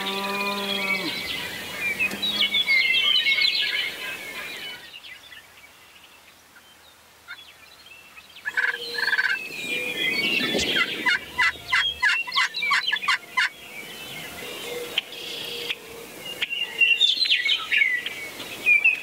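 Wild turkeys gobbling, with rapid rattling gobbles in the second half, over songbirds chirping.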